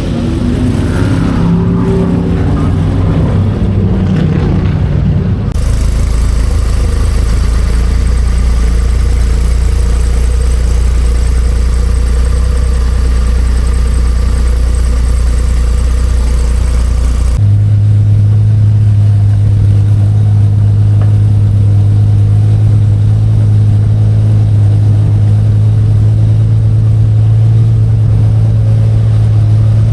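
Racing car engines running with a loud, steady low drone. The sound changes abruptly about five seconds in and again a little past halfway, when a strong steady hum takes over.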